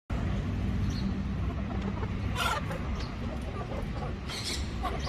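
Chickens clucking: two short calls about two seconds apart, over a steady low rumble.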